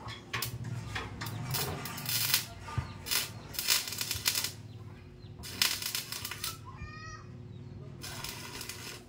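Irregular bursts of harsh, hissing scraping from hand-tool work on the sidecar's metal frame, some short and some about a second long, most of them in the first half and one more near the end.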